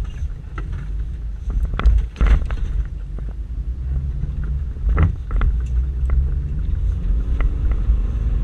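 Inside the cabin of a Toyota Land Cruiser 120 rally car driving fast over a rough dirt track: steady low engine and road rumble, with sharp knocks from bumps about 2 and 5 seconds in, and the engine note rising near the end.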